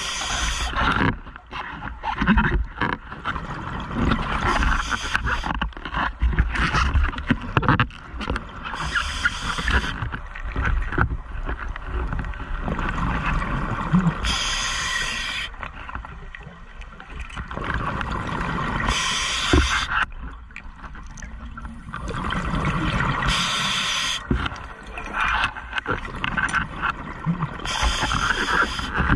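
Scuba diver breathing through a regulator underwater: a hissing inhalation about every five seconds, each followed by a long bubbling, gurgling exhalation.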